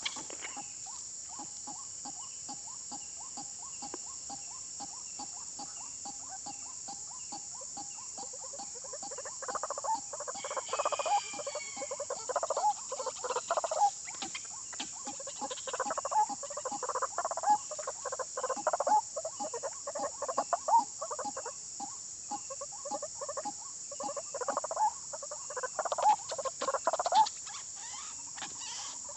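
White-breasted waterhens calling: loud, harsh, rapidly repeated croaking notes in bursts that start about a third of the way in and keep going, over a steady high insect drone.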